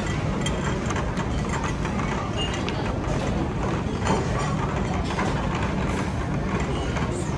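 Tray-return trolley rolling across a hard floor with a steady low rumble, the used plates and cutlery on it rattling and clinking.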